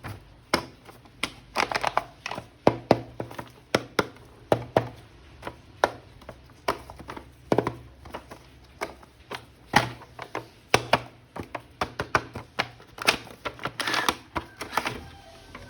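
Hands unboxing and handling a plastic toy action figure and its packaging: irregular plastic clicks and taps, several a second at times, with some crinkling.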